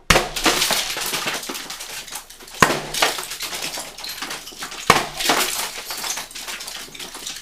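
ICS MGL airsoft multiple grenade launcher firing three Eagle Force 40 mm gas grenades, about two and a half seconds apart. Each shot is a sharp bang followed by about two seconds of clattering as a large spray of BBs flies out and strikes around.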